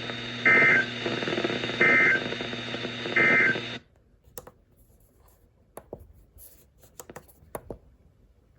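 Emergency Alert System end-of-message signal: three short two-tone digital data bursts, about 1.3 seconds apart, over a hissy, humming radio background. The broadcast cuts off suddenly about four seconds in, leaving a few faint clicks.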